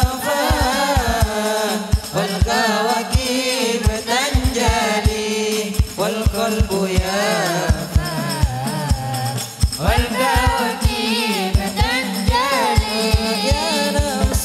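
Hadrah ensemble performing sholawat through a sound system: a sung, ornamented vocal line over rebana frame drums beating a steady pattern with deep bass thumps.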